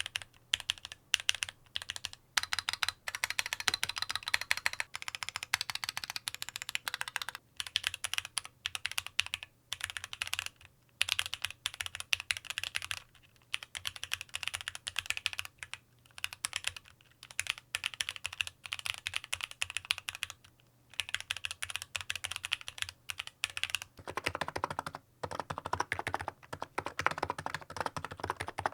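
Typing on a Keychron Q8 aluminium-bodied mechanical keyboard: rapid runs of keystrokes broken by short pauses. In the last few seconds the keystrokes sound deeper and fuller.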